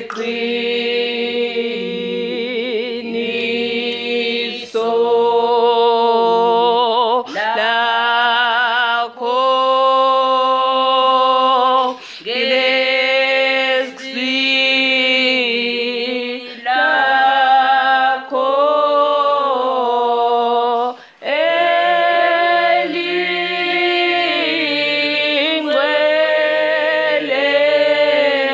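Unaccompanied singing of a church song: voices holding long, wavering notes in phrases of a few seconds, with short breaks for breath between them.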